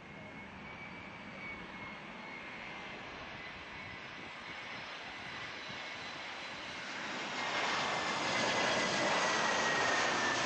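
Airbus A320-200 jet on landing approach, its engine noise growing steadily louder as it nears, with a thin high whine slowly falling in pitch. The noise jumps louder about seven seconds in.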